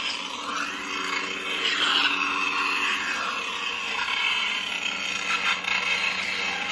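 Lightsaber hum from a Proffie V2 sound board through a 28 mm speaker, with swing sounds that swell and fade as the lit blade is moved.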